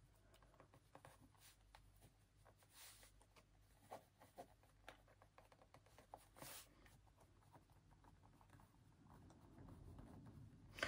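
Faint pen-on-paper writing: a pen scratching and ticking irregularly across a notebook page, with a few slightly sharper ticks in the middle.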